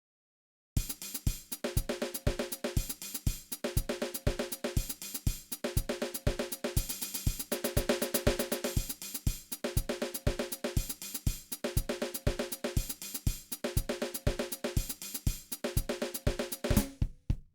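A drum kit groove of bass drum, snare, hi-hat and a 16-inch Paiste medium crash cymbal, played in a steady rhythm. It starts about a second in and stops abruptly near the end.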